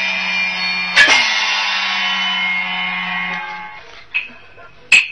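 Huangmei opera instrumental accompaniment: sustained ringing instrumental tones with a sharp percussion strike about a second in. The tones fade out about four seconds in, and another sharp strike comes near the end.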